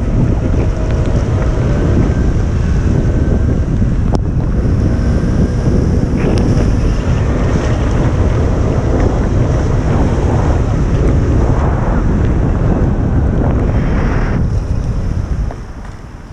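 Heavy wind buffeting on the microphone of a camera in motion: a dense, loud low rumble that eases off shortly before the end.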